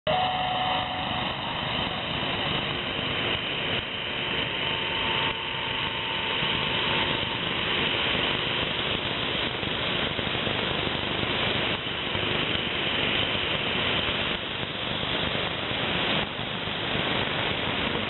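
Shortwave receiver audio on 14,500 kHz: a steady, dense rushing noise with no speech, with a couple of faint steady whistles in the first few seconds. It is the noise-like signal that may be Chinese jamming aimed at Sound of Hope.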